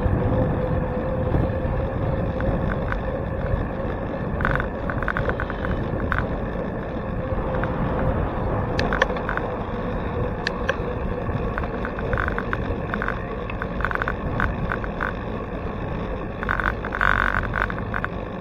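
Wind and road rumble on a bicycle's handlebar-mounted camera while riding, with scattered light rattles and clicks from the bike.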